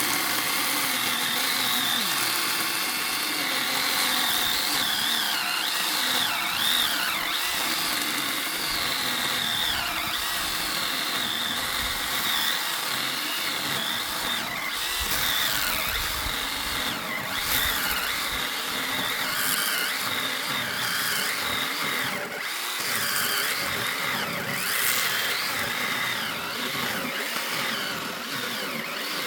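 Motor-driven log splitter running steadily, its pitch wavering up and down as it works through dry firewood.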